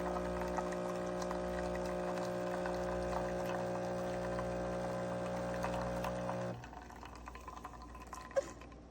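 Single-serve espresso coffee maker brewing: its pump hums steadily while coffee streams into the cup, then both stop suddenly about six and a half seconds in. One brief tick near the end.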